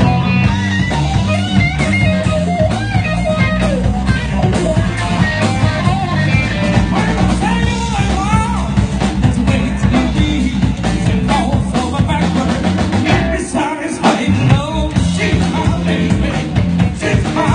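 A live blues band playing: electric guitar, electric bass and drum kit, with a man singing at the microphone.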